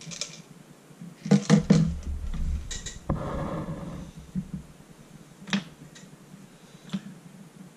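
Hard plastic BB-gun parts handled and set down on a table: a quick cluster of clicks and knocks about a second and a half in, then a stretch of rustling, rumbling handling noise, and a couple of single clicks later.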